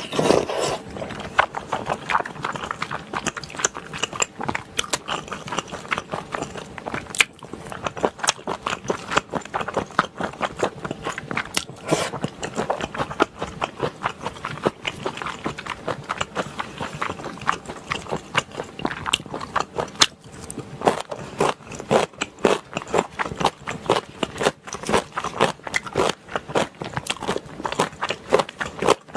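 Close-miked eating sounds of a person chewing spicy stir-fried gopchang (intestines) with chewy Chinese glass noodles: wet, sticky chewing with many small clicks, and a slurp right at the start.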